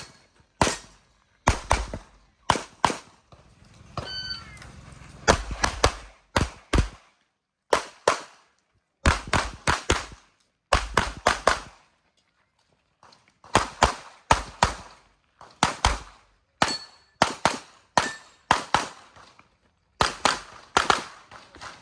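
Tanfoglio 9 mm pistol firing rapidly in an IPSC course of fire. The shots come mostly in quick pairs and short strings, with brief pauses between strings. A short ringing tone follows a shot about four seconds in.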